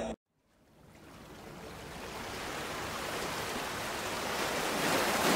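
A brief silence, then a steady rushing hiss that fades in about half a second in and grows slowly louder.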